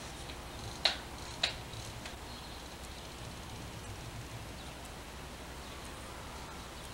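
Two short, sharp clicks about half a second apart, about a second in, over a steady hiss.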